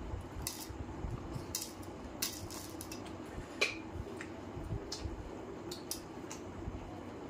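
Close-miked eating by hand from a steel plate: chewing and mouth sounds, with scattered sharp clicks as fingers tear roti and chicken leg pieces. About halfway through comes one louder clink with a short metallic ring, over a steady low hum.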